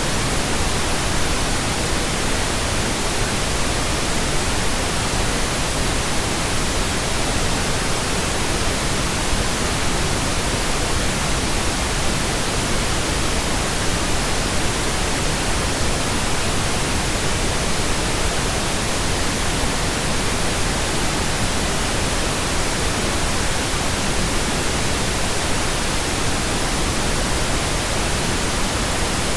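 Steady, unchanging pink noise, computer-generated.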